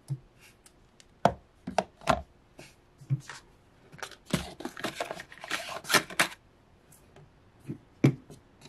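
Plastic product bottles, tubes and small boxes knocking and clattering as they are set down into a clear plastic organizer bin in a wooden dresser drawer, with a quick run of rattles about four to six seconds in.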